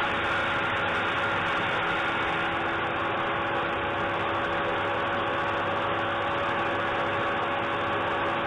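Workshop power-tool motor running steadily: an even whir with a few steady hum tones and no change in speed.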